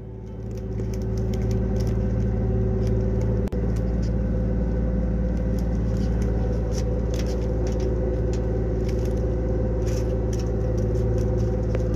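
A fishing boat's engine running steadily at a constant pitch, with scattered light clicks and knocks over it.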